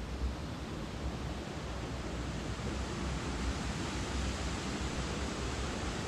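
Steady rush of falling water from a waterfall, an even hiss with a low rumble underneath.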